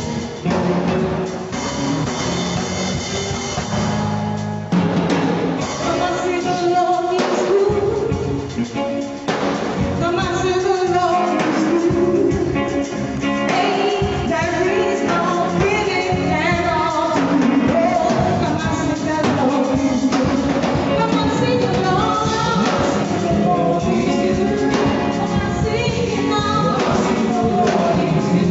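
Church worship song: voices singing over a band with drums.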